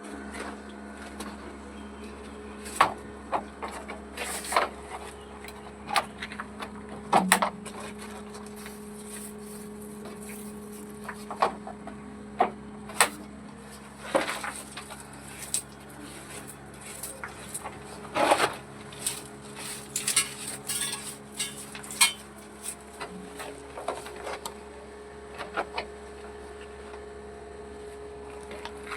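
Irregular metallic clinks, taps and knocks of bathroom mixer tap fittings being handled and fitted, some sharp and loud, over a steady hum.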